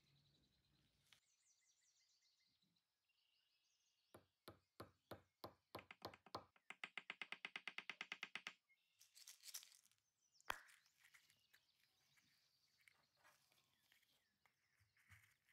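A run of small, sharp mechanical clicks starting about four seconds in, speeding up to about ten a second and stopping abruptly. A short rasping scrape follows, then one louder, sharper click.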